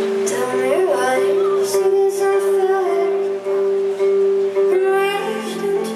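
A woman singing live to her own electric guitar accompaniment, with long sustained notes under the vocal line. The voice comes in just after the start.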